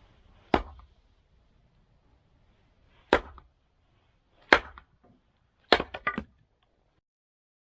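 Four sharp, loud knocks a second or more apart, the last followed at once by a quick run of three or four smaller ones.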